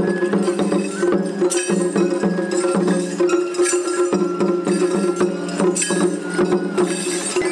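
Traditional-sounding music: regular percussion hits over a steady held low tone.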